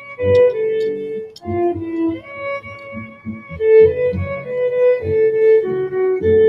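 Slow instrumental music led by a violin: held melody notes over lower accompanying notes.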